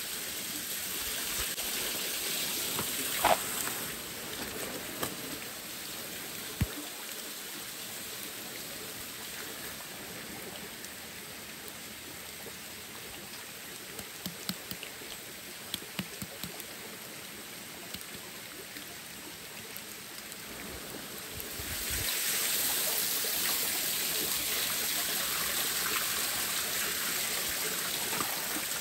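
Shallow stream running over rock, a steady rushing of water that grows louder about three quarters of the way through. A few light clicks and knocks sound over it.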